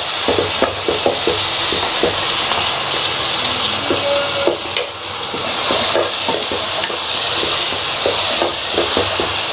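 Onion and tomato masala sizzling in hot oil in a kadai while a metal spoon stirs it, with irregular scrapes and taps of the spoon against the pan. The tomatoes are frying down to a soft pulp.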